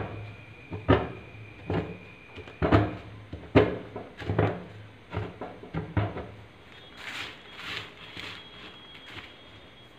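Chunks of reformed gym chalk crushed by hand against a hard surface: sharp crunches about once a second, then a softer, hissier crumbling from about seven seconds in as the crumbs are pushed and gathered.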